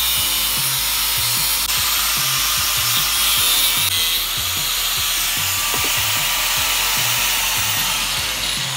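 Angle grinder running and cutting through metal nails set in a wooden strip: a steady, loud grinding hiss, with background music underneath.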